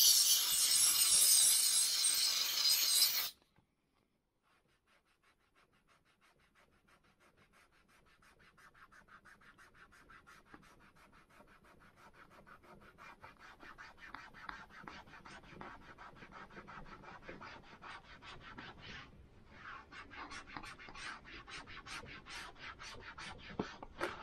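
Handheld steam cleaner hissing as it jets steam onto a white wall motorcycle tire, cutting off suddenly about three seconds in. After a short quiet, a microfiber cloth rubs the tire's sidewall in quick back-and-forth strokes that grow louder toward the end.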